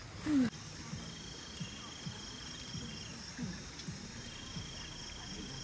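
Insects trilling, a high, finely pulsed steady trill that stops and starts again, over a string of short low falling calls about every half second. There is a brief louder low call just after the start.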